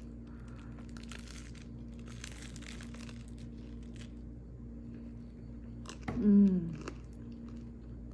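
Crunching bites into a toasted ciabatta grilled cheese sandwich, with chewing, over a steady low hum. About six seconds in comes a short, loud vocal sound falling in pitch.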